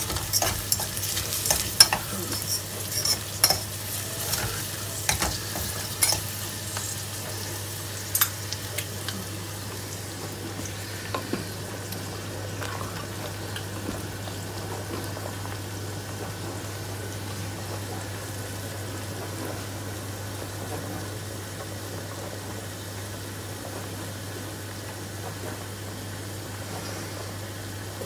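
A wooden spatula stirs a thick gravy in a steel pot and knocks against its sides: a run of sharp taps in roughly the first ten seconds, over a steady sizzle of food cooking on the stove. The stirring works a flour-and-water slurry into the gravy to thicken it.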